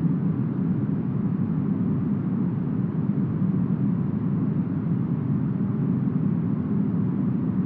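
Steady deep brown noise styled as forest wind: an even, muffled rush with its weight low down and almost nothing in the highs, unchanging, with no gusts or breaks.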